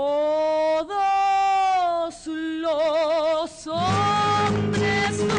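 A woman's solo singing voice in a stage musical holds long notes with no accompaniment: it scoops up into the first note, then holds a steady one, then one with a wide vibrato. About four seconds in, the pit band comes in with a steady low accompaniment under her.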